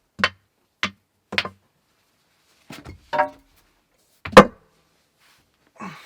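Rocks being set in place and knocking against other stones: about seven sharp clacks, some with a short ringing tone, the loudest a little past four seconds in.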